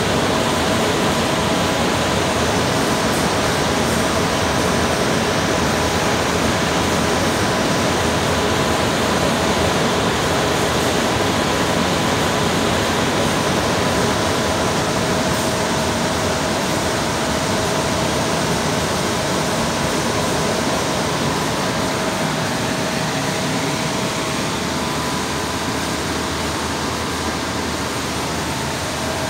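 Blower fan of a 20 HP floor-standing air conditioner running with the compressor off: a steady loud rush of air with a faint steady whine.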